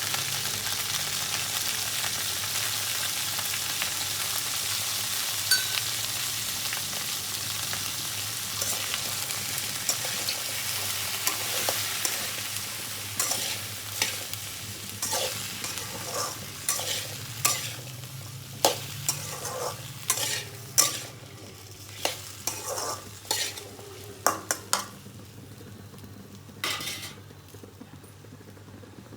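Chopped okra frying in hot oil in a kadai, sizzling steadily, with the sizzle slowly dying down. From about halfway on, a spatula stirs the pan with many short scrapes and knocks against the kadai.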